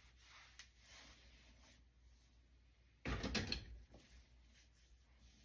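Brief clatter and rustle about three seconds in, as hair-styling tools are handled; otherwise only faint small handling ticks.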